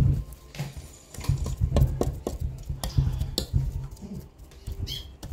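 Stone pestle knocking and grinding in a stone mortar, mixing sambal, in irregular dull knocks about two or three a second. A brief high squeak comes near the end.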